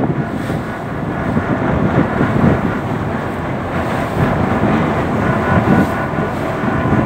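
Wind buffeting the microphone on the open deck of a moving passenger boat, over the steady drone of the boat's engine.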